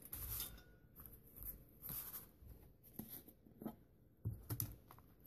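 Faint paper rustling and light knocks on a tabletop as blank paper tags are handled and a small tin of gold paint is picked up.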